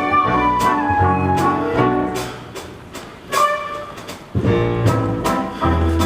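Instrumental musical-theatre chase music with a steady beat of drums and bass under melodic instruments; it thins out about two seconds in and comes back in full a little after four seconds.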